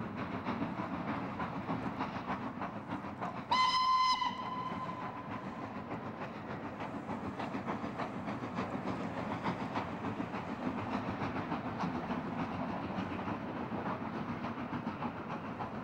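Southern Railway N15 King Arthur class steam locomotive Sir Lamiel running with its train, a continuous rumble with a fast rhythmic pattern. It sounds its whistle once, a single blast of about a second, about three and a half seconds in.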